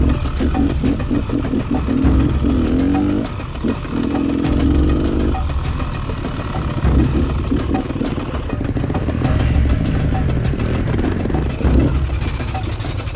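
Dirt bike engine revving up and down, its pitch rising and falling with the throttle as the bike is ridden slowly over rough, overgrown ground, with knocks and rattles from the bike throughout.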